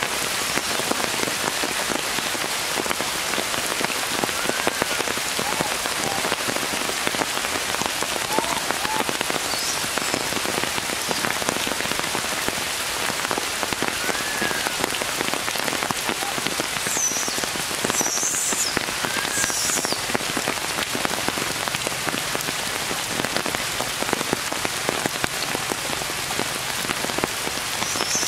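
Steady rain falling on tree foliage: a dense, even patter.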